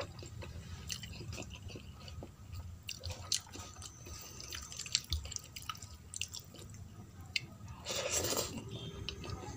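Close-up wet eating sounds: many small wet clicks and smacks of fingers mixing rice with dal and of chewing the mouthfuls. About eight seconds in, as a handful goes to the mouth, the sound grows louder for about half a second.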